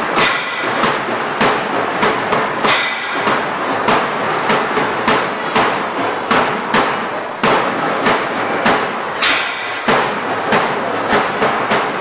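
Steady rhythmic knocking, two to three sharp beats a second, with a few heavier strikes.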